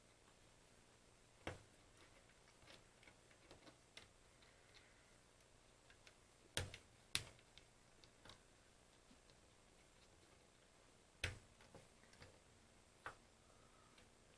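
Sparse light clicks and taps of small objects being handled on a workbench, with near silence between; the sharpest are two clicks about half a second apart in the middle.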